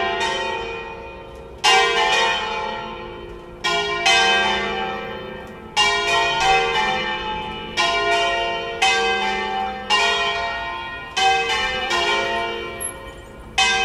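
Ring of four bronze church bells in F, electrically swung full circle in the Veronese style, ringing together in a full peal. Strikes come at irregular intervals about a second or two apart, sometimes close together, each ringing on and fading before the next.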